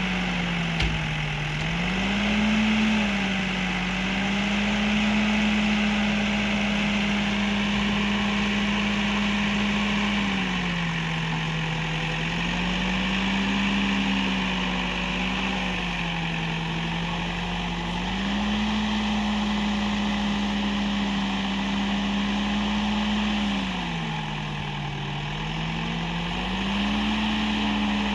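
Escorts Digmax backhoe loader's diesel engine running while working, its pitch sagging and recovering several times.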